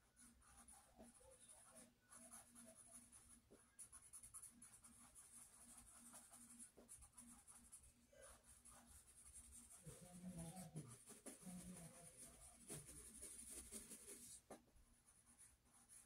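Faint scratching of a pencil drawing and shading on sketchbook paper. A little past the middle, a faint muffled pitched sound comes from elsewhere for a few seconds.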